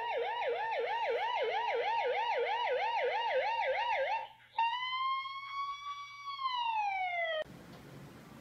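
Police-style siren sound, most likely played through a phone speaker: a fast yelp warbling up and down about three and a half times a second, then, about four and a half seconds in, one long wailing tone that falls away near the end before cutting off.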